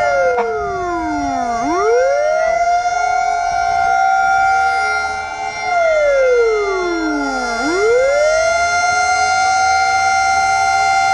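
Fire truck siren wailing: its note slides down in pitch and winds back up to a held high note, twice, about six seconds apart, over a second steady siren tone.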